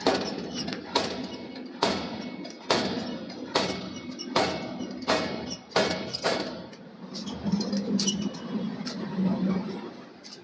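Steel billet being forged: a run of about eight heavy hammer blows, a little under a second apart, each ringing briefly. After them comes a steady low machine hum.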